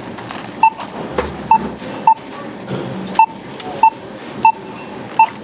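Self-checkout barcode scanner beeping seven times in quick, uneven succession as items are passed over the scanner glass, each short beep confirming a scanned item.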